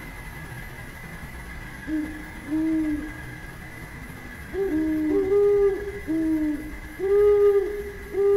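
Low hooting calls, each half a second to a second long and arching in pitch, repeating from about two seconds in, with a second, slightly higher-pitched caller overlapping them. A steady high whine runs underneath.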